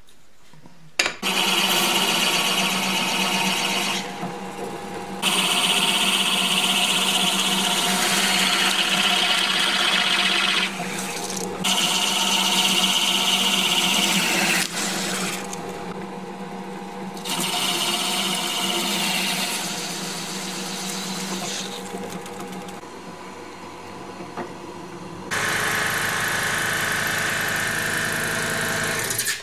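Electric power tool running with a steady hum. It starts about a second in and gets louder and quieter in stretches as it works the piece, then cuts off abruptly at the end.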